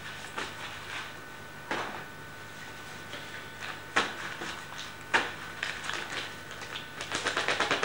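A few sharp knocks and clacks of things being handled on a desk, then near the end a fast, even run of mechanical clicking, about ten clicks a second.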